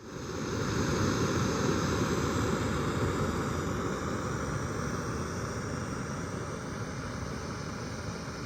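Steady, even rushing noise that fades in quickly at the start and holds level.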